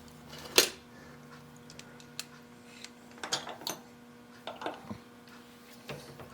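Scattered light clicks and taps, about seven in all, from tools and parts being handled at a machine shop bench, over a steady faint electrical hum.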